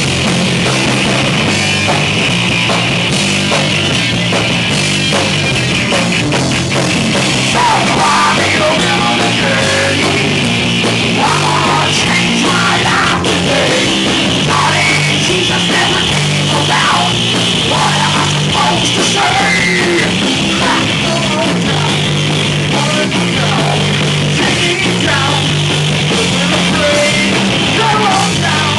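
A rock band playing loud heavy rock live: electric guitar, bass guitar and drum kit, with a singer's voice coming in after several seconds.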